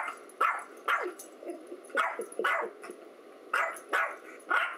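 Small Yorkshire terrier barking at its own reflection in a mirror: about eight short, high barks, mostly in quick pairs, each dropping in pitch.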